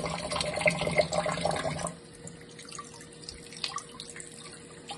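Kitchen tap running water into a sink, shut off about two seconds in, followed by a few faint clicks of handling.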